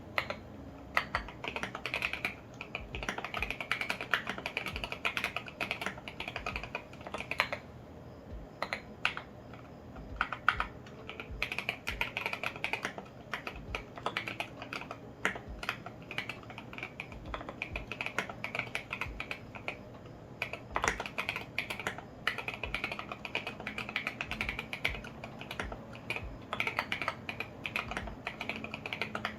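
Fast typing on a custom KBDfans Tofu65 acrylic mechanical keyboard with lubed, filmed Alpaca V2 linear switches and SA-profile ABS keycaps: a dense run of keystroke clicks, broken by a couple of short pauses.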